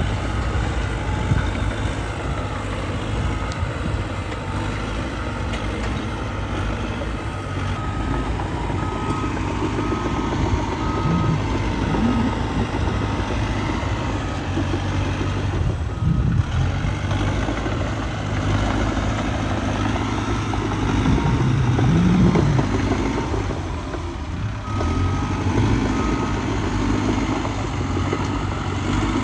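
Diesel engine of a Cat D3K2 XL crawler bulldozer working steadily while pushing dirt, rising in a few swells under load. A reversing alarm beeps in an even rhythm in two spells, around the first third and again near the end.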